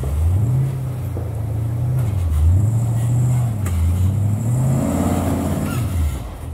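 A rock-crawling Jeep's engine revving up and down again and again as it works its big tyres up over boulders, climbing higher in pitch about five seconds in.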